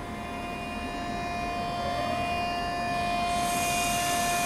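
Eurostar e320 (Siemens Velaro) high-speed train's electric traction equipment whining, several steady tones with one tone gliding upward about two seconds in, growing steadily louder. A high hiss joins about three seconds in.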